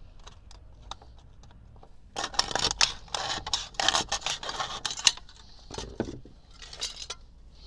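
Knife blade stabbing and sawing through a thin aluminium drink can: a run of scraping, crinkling metal from about two seconds in to about five seconds, ending in a sharp click, then a few lighter crinkles as the cut can is handled.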